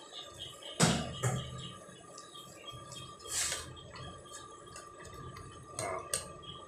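Curry simmering and bubbling in a stainless steel wok while a ladle stirs it, knocking against the pan a few times. The loudest knock comes about a second in.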